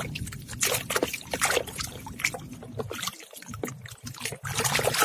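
Water splashing and sloshing in a basin as a hand swishes a muddy plastic toy figure through it to wash off the mud, in quick irregular splashes that thin out after about three seconds, with water trickling off as the figure is lifted out near the end.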